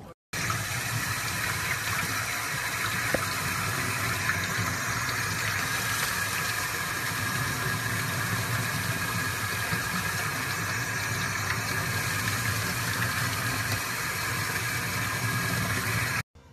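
Sink faucet running steadily, its stream splashing onto a puppy held under the tap for a bath.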